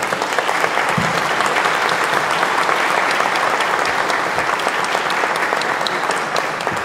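An audience applauding steadily for several seconds, many hands clapping at once.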